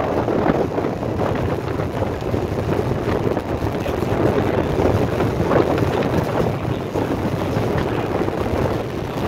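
Steady road and wind noise from a vehicle driving on a dirt road, a dense rumbling hiss with a few faint ticks.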